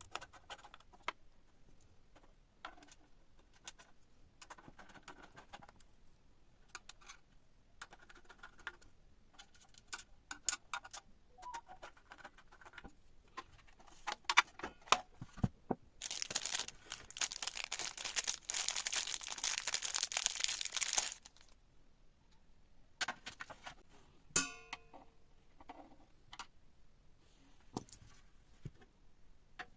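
Handling noises of small hardware being worked on: scattered clicks and taps, with about five seconds of crinkling rustle in the middle, the loudest part. A sharp click with a brief ring comes a few seconds after the rustle.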